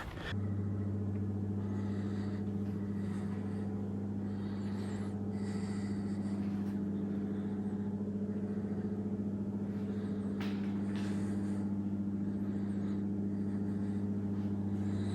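A steady, unchanging low hum with a deep tone and a weaker overtone, like a motor or electrical machine running.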